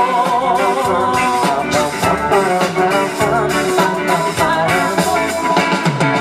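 Greek pop song playing as background music: an instrumental passage with guitar and a steady beat between sung lines.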